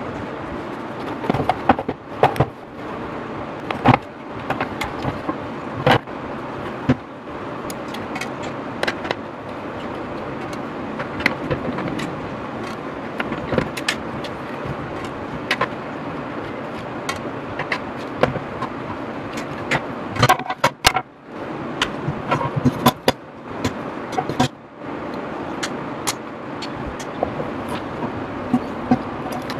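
Irregular clicks, knocks and clatter of hand tools, small screws and plastic casing as a cassette boombox is taken apart and its speakers are pulled out, over a steady background hiss and rumble.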